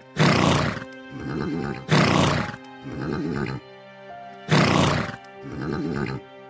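A horse neighs three times, about two seconds apart, each call a loud burst followed by a softer trailing part, over steady background music.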